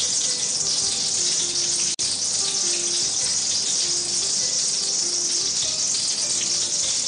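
Cumin seeds frying in hot refined oil in a steel kadai, a steady high sizzling hiss as the seeds splutter. The sound cuts out for an instant about two seconds in.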